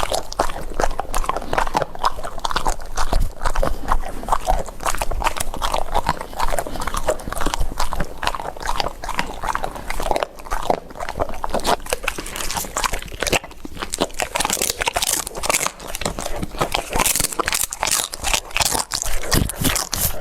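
Dogs chewing and crunching food, with many crisp bites coming in quick, irregular succession.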